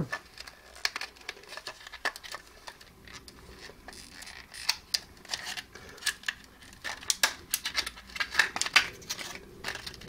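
Clear plastic blister pack crinkling and snapping as it is handled and prised open: irregular sharp crackles and clicks, busiest in the last few seconds.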